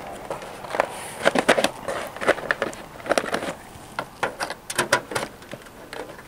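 Vinyl siding outside corner trim being flexed and worked into its channel by hand, giving irregular plastic clicks, knocks and scrapes.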